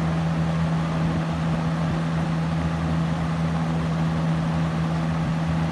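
1972 Galaxy model 3713 20-inch box fan running on high: a steady rush of air over a steady low hum from its motor.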